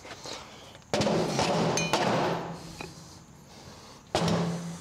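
Steel hydraulic cylinder gland and chrome shaft clanking and scraping as they are handled. There are two sudden loud bouts, one about a second in and one near the end, each with a short metallic ring.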